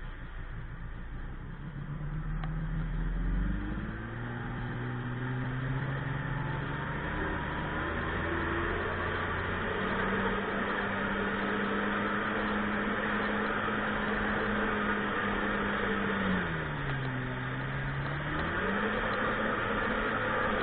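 Sea-Doo personal watercraft engine running under way, with wind and water noise. The engine note is low just after the start and rises over the next few seconds as the throttle opens, then holds steady at cruising speed. Near the end it dips briefly as the throttle eases and picks back up.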